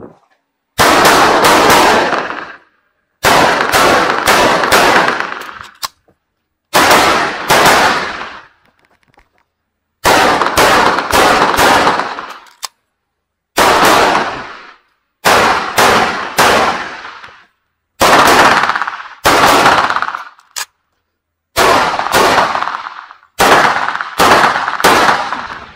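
Gunshots from a 1911 pistol in .45 ACP, fired in quick pairs and short strings of three to five, about ten strings with pauses of a second or so between them. Each shot rings out briefly, echoing off the covered bay.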